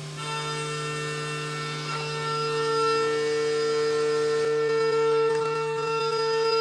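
End mill in a Haas UMC 750 five-axis CNC mill facing aluminum, giving a steady, singing tone that comes in just after the start over the machine's constant hum.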